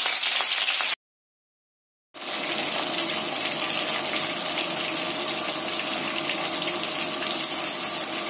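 Cornflour-coated prawns deep-frying in hot oil in a kadhai, a steady sizzle. It cuts out to silence about a second in, then resumes with a faint steady hum beneath it.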